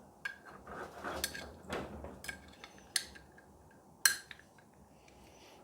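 Small metal parts clinking: a garage-door bracket, wheel and hairpin clip being handled and snapped together, with about six sharp clicks over the first four seconds.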